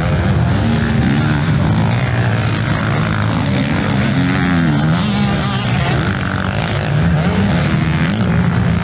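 Several motocross bikes' engines revving, their pitches rising and falling and overlapping as the riders accelerate and back off around the track.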